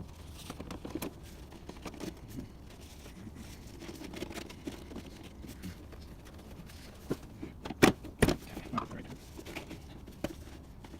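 Plastic air-filter housing parts being handled and unclipped, with scattered small clicks and two sharp knocks close together about eight seconds in.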